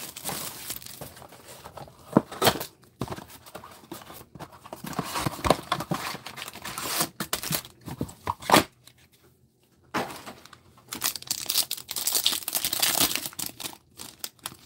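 A cardboard trading-card booster box being opened, then a foil card pack being torn open and crinkled, with irregular rustling and a few sharp snaps. The rustling stops briefly a little past halfway, then the tearing and crinkling of the pack follow.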